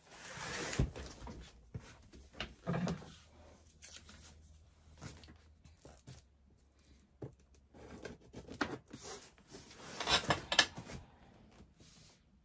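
Scissors and hands working on a large cardboard computer box to open it: scraping, rubbing and tearing of the box and its packing tape in several irregular bursts, loudest about ten seconds in.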